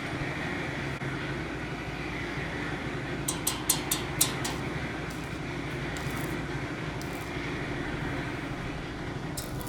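A steady engine-like hum, with a quick run of sharp clicks, like metal tapping, about three to four and a half seconds in and one more near the end.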